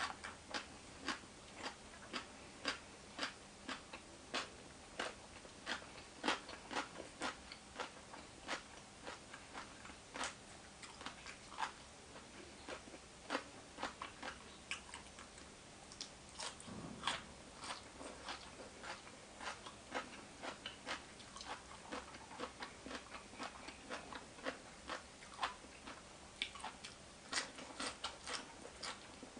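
A person biting and chewing crunchy food, with sharp crunches coming irregularly at about two a second.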